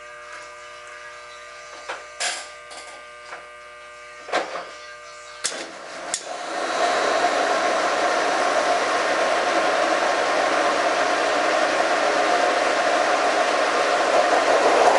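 Horizontal boring mill running with a steady hum and a few knocks. About six seconds in, a loud steady cutting noise begins as the brazed-carbide boring bar, turning at 335 RPM, takes a 1/8-inch roughing cut in the weld-filled connecting rod bore.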